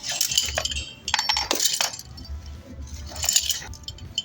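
Metal rope-access hardware, carabiners and similar gear, clinking and jangling as it is handled, in several irregular bursts.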